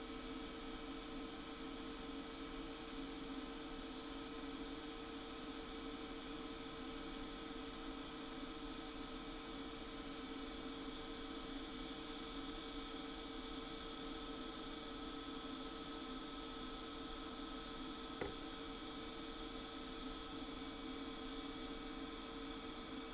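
TIG welding arc on titanium coupons fed with ERTi-2 filler rod: a steady electrical hum with a faint hiss, even throughout. A single brief click about eighteen seconds in.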